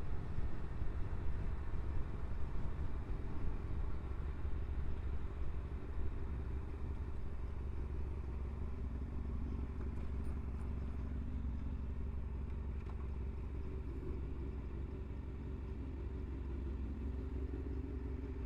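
Kawasaki ZX-6R 636's inline-four engine idling steadily.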